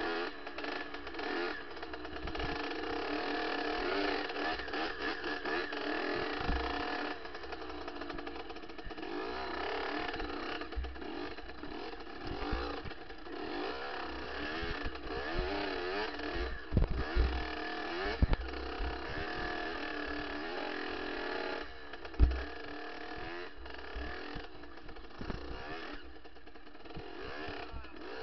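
Kawasaki KX65 single-cylinder two-stroke dirt bike engine revving, its pitch rising and falling over and over as the bike rides a rough trail. Knocks and thumps from the bike hitting bumps come through it, the hardest about two thirds of the way through.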